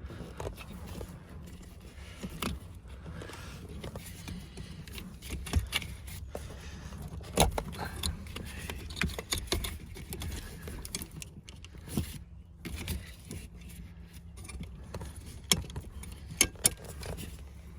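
Irregular metallic clicks, clinks and scrapes of hand work on a pickup's seat and its wiring, with a few sharper knocks, the loudest in the second half, over a low steady hum.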